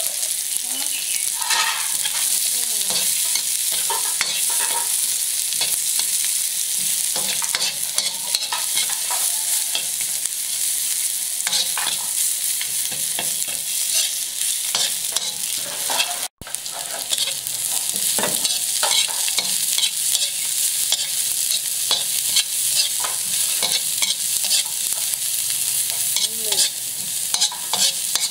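Shallots frying and sizzling in a wok, with a metal wok spatula scraping and clinking against the pan as they are stirred. The sound cuts out for an instant about two-thirds of the way through.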